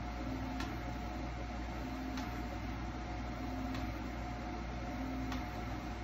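SeeMeCNC Rostock Max v4 delta 3D printer probing its bed: each time the stepper motors drive the effector briefly, then the nozzle taps the bed with a sharp click, four times about every second and a half. Steady fan hum with a faint constant tone underneath.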